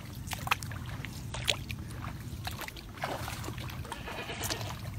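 Scattered crackling and rustling of mandarin leaves and stems as a sugar mandarin is broken off the branch and handled, over a low steady rumble.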